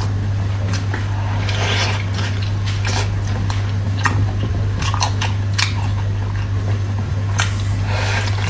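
Close-miked chewing and biting of braised pork trotter: irregular wet, sticky mouth clicks and smacks, with longer squelchy stretches about two seconds in and near the end. A steady low hum runs underneath.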